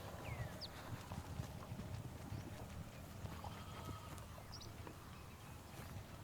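Soft, irregular low thuds of grazing farm animals stepping and cropping grass, with a few short falling bird chirps about half a second in and again past the middle.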